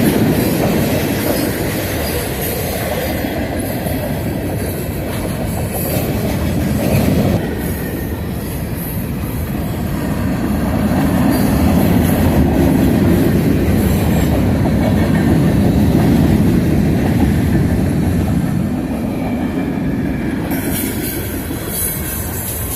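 CSX freight train passing at track speed: a steady rumble and rattle of steel wheels on rail, with clicking over the rail joints, swelling a little in the middle.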